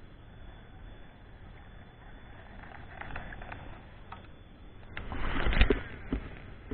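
A quiet river background with a few light clicks, then about five seconds in a short burst of splashing and knocking as the fishing lure is drawn in close and lifted from the water on a baitcasting rod.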